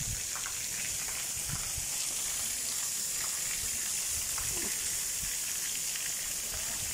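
Cattle-shed water sprinklers spraying, a steady hiss of water falling on the cows and the wet concrete floor.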